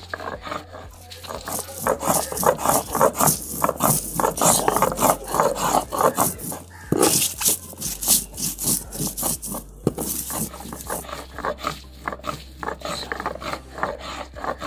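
Stone muller scraping and rolling back and forth on a sil stone grinding slab, crushing dried red chillies, garlic and cumin seeds into a masala: repeated rough grinding strokes, stone on stone.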